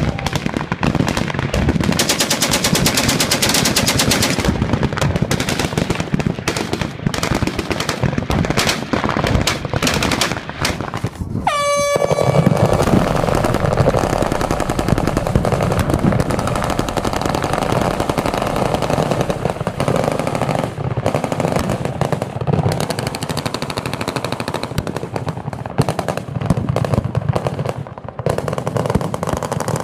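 Massed machine guns firing at once, a continuous rattle of automatic fire. About twelve seconds in the fire breaks off for a moment and a range horn sounds briefly, then the automatic fire carries on.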